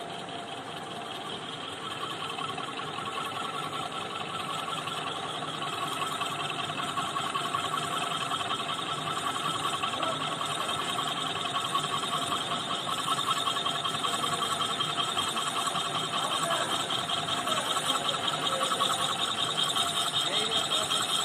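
A machine tool cutting a gear blank: steady running with a fast, fine chatter from the cut, growing gradually louder.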